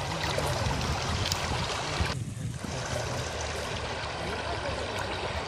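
Shallow river water running steadily over gravel, an even rushing noise with a lot of low rumble. The sound dips briefly about two seconds in.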